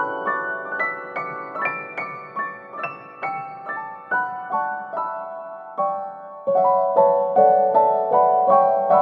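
Background piano music: a gentle melody of single struck notes, several a second, rising then falling.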